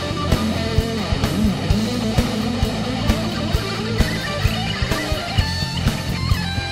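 Heavy metal song: electric guitars over bass guitar and a steady drum beat.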